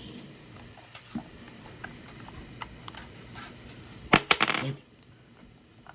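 Batteries and a handheld radio being handled: scattered light clicks of small hard objects, then a louder burst of clattering about four seconds in.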